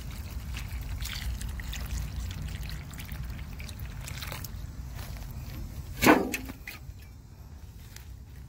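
Water pouring from a spout onto mulched garden soil, a steady splashing trickle. About six seconds in there is a single loud knock.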